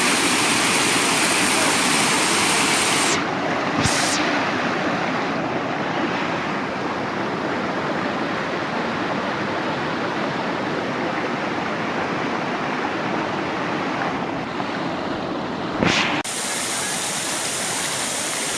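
Waterfall rushing: a steady, dense water noise. A little past three seconds in it turns quieter and duller, then comes back fuller after a short sharp burst near the end.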